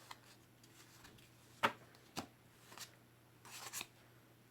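Magic: The Gathering cards being handled and flipped: a few short snaps and slides of card stock, the sharpest about a second and a half in, then a brief rustle near the end.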